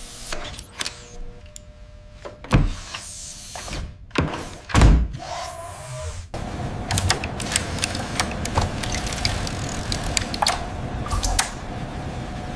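Mechanical sound effects: two heavy thuds in the first half, then a steady machine hum with a quick run of sharp metallic clicks and ticks.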